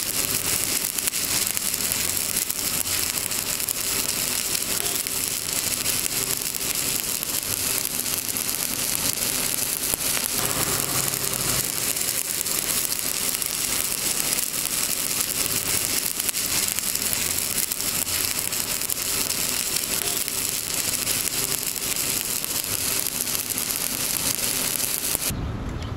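Electric arc welding: the arc burns with a steady, dense crackling hiss as the bead is laid along a horizontal joint, and stops abruptly shortly before the end.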